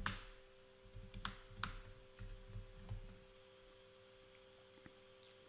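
Quiet typing and clicks on a computer keyboard, a few sharp clicks among soft taps in the first three seconds, then only a faint steady hum.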